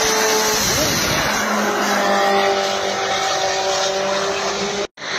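Loud engine roar with a steady droning tone that sets in about a second and a half in. The sound cuts out abruptly near the end.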